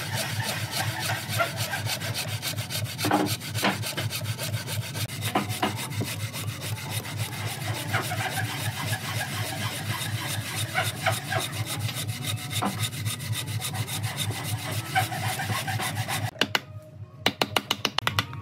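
Hand bow saw cutting across a weathered tree-stump log in rapid back-and-forth strokes. Near the end the sawing stops and a wooden mallet drives a chisel into the cut with sharp, quick blows.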